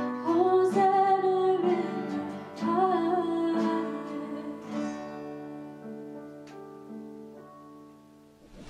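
Song sung over acoustic guitar, a worship song in a church service. The singing stops about five seconds in, and the last chords fade away near the end.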